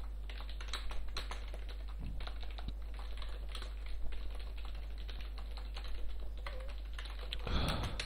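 Computer keyboard being typed on: a run of short, irregular key clicks, over a steady low hum.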